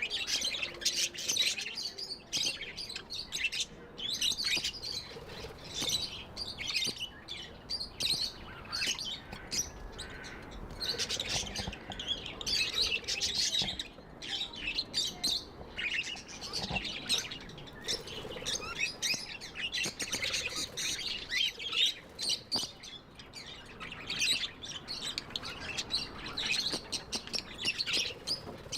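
Budgerigars chirping and warbling together in a continuous, overlapping chatter of quick high chirps.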